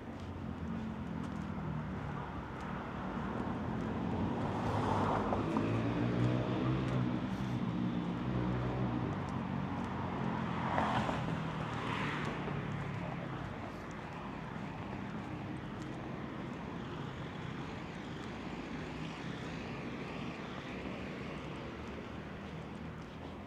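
A vehicle drives past on the street, its sound swelling over a few seconds and fading away about halfway through, leaving the steady hum of city traffic.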